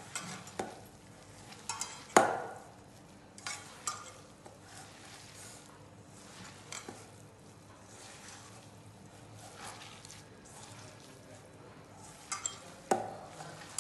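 Hands mixing and pressing crumbled roti with ghee and jaggery in a stainless steel bowl: a soft crackly rustle of ghee-soaked crumbs, with a few sharp clicks and knocks against the bowl, the loudest about two seconds in and again near the end.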